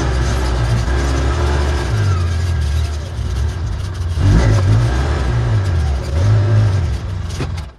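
Petrol string trimmer (weed eater) engine running hard through thick grass and weeds, its pitch rising and falling as it loads up and frees. It cuts off suddenly near the end.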